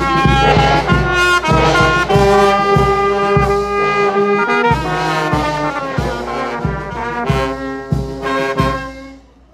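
Brass band playing a melody, trumpet to the fore, over a steady drum beat; the music stops just before the end.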